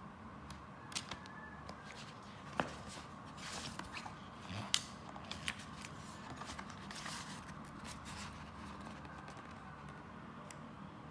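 Album photo booklets and paper packaging being handled: soft rustles of paper with scattered light clicks and a few sharper taps, the sharpest about two and a half and four and a half seconds in.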